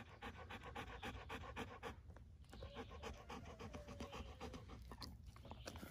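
Large shaggy dog panting rapidly to cool off in the heat, about five breaths a second, pausing briefly about two seconds in.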